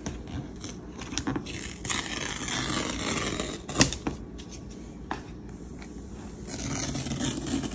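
Paper tear-strip seals being ripped off the sides of a cardboard laptop box: a scraping, tearing rasp about two seconds in and again near the end, with one sharp click in between.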